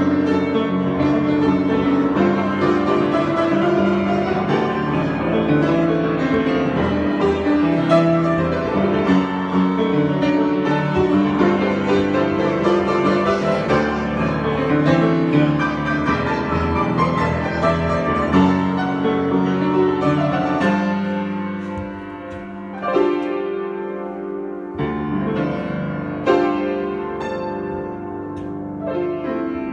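Solo piano improvisation: dense, flowing playing with many overlapping notes that thins out after about twenty seconds into separate struck chords left to ring.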